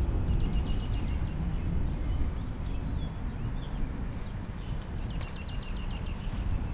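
Small birds twittering overhead: a quick run of rapid high chirps about a second in, a few single chirps in the middle, and another rapid run near the end. Beneath them runs a low, steady rumble of wind on the microphone.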